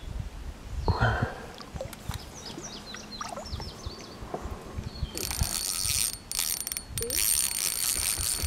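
Fishing reel clicking in spurts, a fast high ratcheting with short breaks, starting about five seconds in as a fish is being played. A thump about a second in, with a few short chirps after it.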